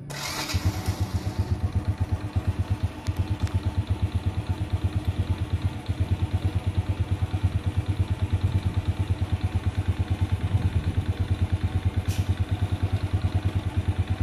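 Honda Astrea Legenda 2's 96 cc single-cylinder four-stroke engine starting up and then idling steadily with an even, rapid putter.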